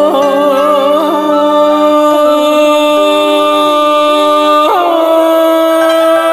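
Traditional Vietnamese music for poetry chanting: one long, wavering held note that slides up into place and steps down to a lower held note about two-thirds of the way through.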